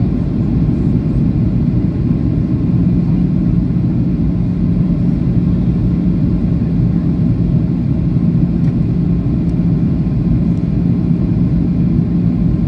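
Cabin noise inside a Boeing 737-800 on approach: the steady low rush of its CFM56-7B engines and the airflow past the fuselage. A steady low hum joins in about three seconds in.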